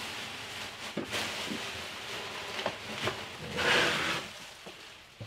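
Rustling and a few light knocks of something being handled, with a longer, louder rustle about three and a half seconds in.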